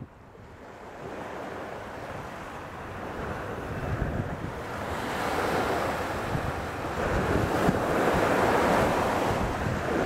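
Small waves breaking and washing up a sandy beach. The surf swells from a soft wash to a louder rush in the second half, with wind buffeting the microphone.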